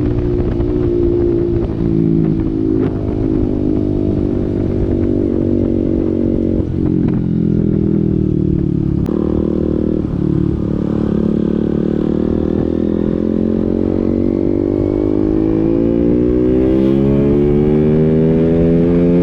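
KTM Duke single-cylinder engine running through an open SC Project exhaust. The revs hold fairly steady at first with a couple of quick throttle changes around the middle, then climb slowly and steadily through the second half.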